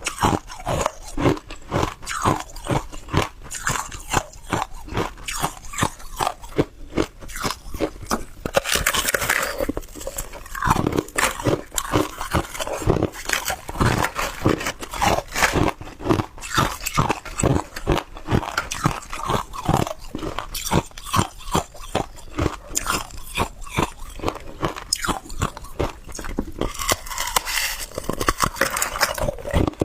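Hard ice being bitten and chewed: sharp, irregular crunches, a few per second, running on without a break.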